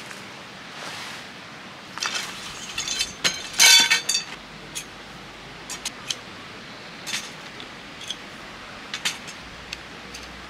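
Segmented metal tent poles clinking and rattling as they are unfolded and joined. A loud cluster of jingling, ringing clinks comes about two to four seconds in, followed by scattered single clicks.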